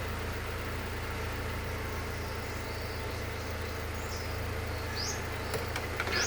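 An engine running steadily with a low, even hum. A few short rising chirps sound in the second half.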